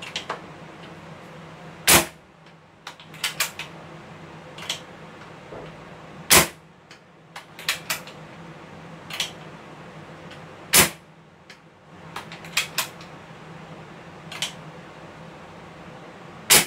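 Escopeta pneumatic air rifle dry-fired four times, about every four and a half seconds: each shot is a sharp pop of air released from its tank, which is being emptied. Lighter clicks and knocks come between the shots.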